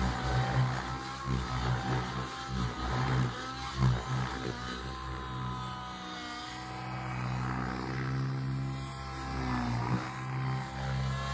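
Goblin RAW 700 nitro RC helicopter's two-stroke glow engine and rotor blades during low, hard manoeuvring flight. The engine note bends up and down with the load, with sharp blade chops through the first few seconds. From about six seconds in it settles into a steadier tone.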